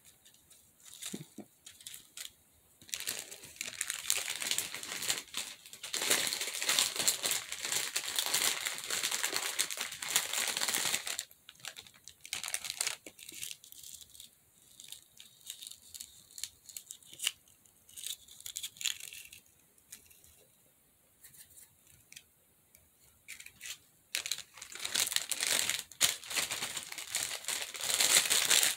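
Clear plastic bag and thin nail-art transfer foils crinkling as they are handled, in two long stretches with a quieter spell between.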